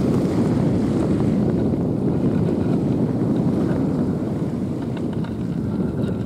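Wind blowing across the microphone, a steady low rushing noise that rises and falls slightly.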